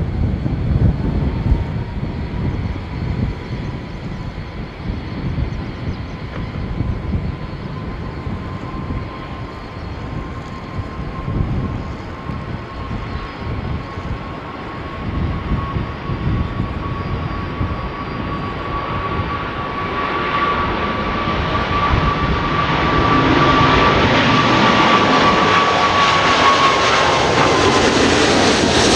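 Boeing 777's twin jet engines at takeoff power, a steady whine over gusts of wind on the microphone. From about 20 seconds in the engine noise swells and grows much louder as the jet accelerates down the runway and passes close by on its takeoff roll.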